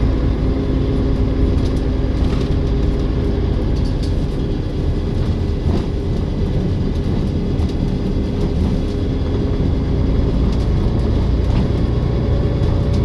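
Olympian double-decker bus running steadily: an even engine rumble with a faint steady turbo whine above it.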